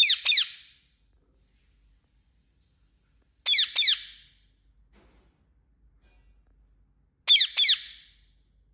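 Parrot chirping: three short calls about three and a half seconds apart, each a pair of quick, high, falling chirps.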